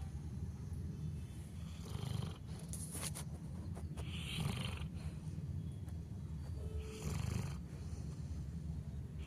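Labrador retriever snoring in its sleep: a low steady rumble with three noisy breaths a couple of seconds apart.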